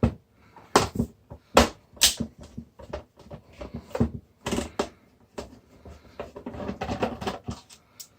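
Plastic casing of a film scanner being handled and turned over on a work surface: a series of sharp knocks and clicks, with a stretch of scraping and rustling near the end.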